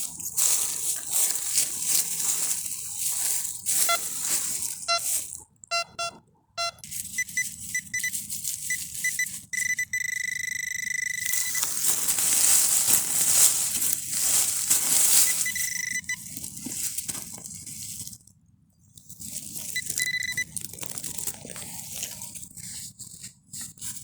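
Metal detector giving short electronic beeps and, about ten seconds in, a longer steady tone, over loud scratchy rustling and scraping.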